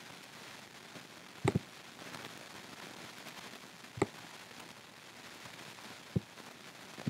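Computer mouse button clicks over a steady low hiss: a quick double click about a second and a half in, then single clicks about four and six seconds in.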